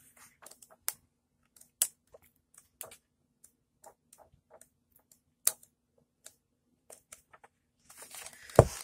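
Pages of a paperback book being turned by hand: scattered soft paper crackles and flicks, a few sharper snaps, then a brief flurry of rustling and a louder thump near the end.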